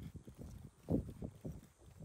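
Footsteps on a grassy path: a run of soft, irregular low thuds, the loudest about halfway through.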